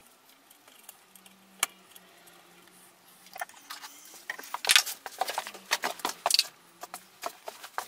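Small metal parts and hand tools clinking and clicking as star washers and nuts are fitted to the exhaust studs of a moped engine. There is one sharp click early, then a dense run of clinks through the second half.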